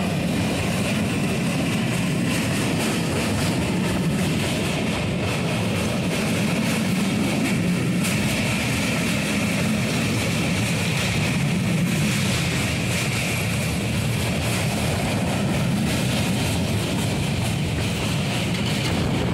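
Steady running rumble of a passenger train crossing a steel truss railway bridge, heard from aboard the train.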